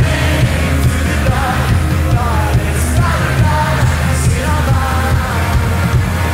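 Live pop-rock band playing, with a steady bass and drum beat under a wavering melodic line.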